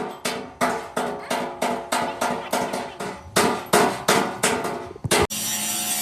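Hammer blows on metal, about three a second, each one ringing. Near the end the hammering stops and a steady loud hiss starts.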